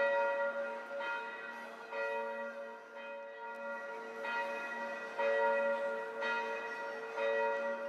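Church bells ringing, with a fresh strike about every second and the long tones of the bells hanging over one another.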